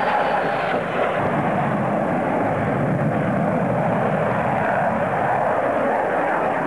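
Jet engines of a Su-47 Berkut flying past overhead: a steady, loud rushing noise with no clear tone.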